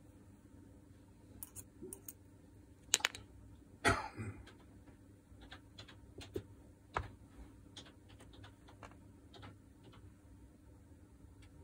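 Small metal drill-gearbox parts clicking and clinking as they are handled and lifted out during disassembly: scattered light taps, with a louder clack and a short scrape about four seconds in.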